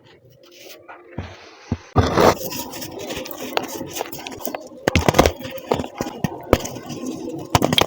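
Pressed baking soda being crushed and crumbling: quiet at first with a few faint cracks, then from about two seconds in a dense run of crunching and crackling with many sharp clicks.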